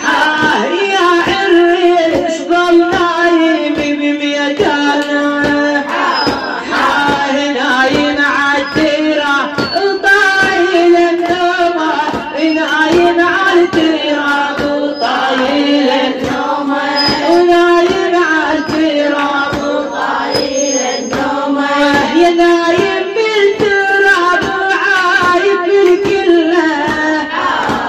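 A woman's voice chanting a mournful Shia latmiyya lament in long, wavering, drawn-out notes, over a steady beat of about two strikes a second.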